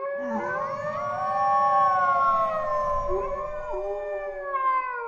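Several wolves howling together in a chorus: long, slowly gliding calls at different pitches overlapping one another.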